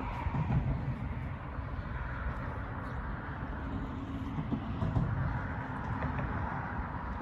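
Road traffic passing: a steady rumble, with vehicles swelling past about two seconds in and again around five to six seconds in, and wind buffeting the microphone.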